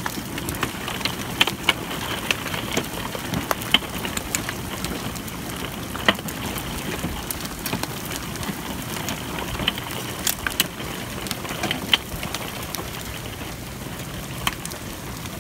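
Hailstorm with heavy rain: a steady rain hiss broken by many sharp, irregular cracks of hailstones striking hard surfaces.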